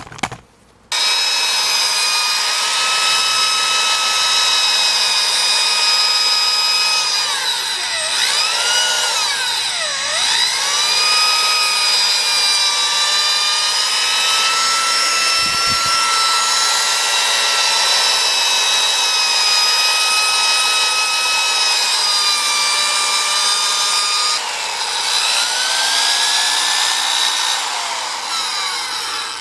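Drill motor whining steadily as it spins a foam polishing cone against a metal exhaust tip, polishing the outside of the tip. It starts about a second in and its pitch dips and comes back up twice a little before halfway. The tone changes about five seconds before the end, and the motor eases off near the end.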